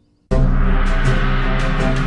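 The series' closing theme music cuts in suddenly a moment in: loud sustained notes over a deep bass, with repeated percussion strikes.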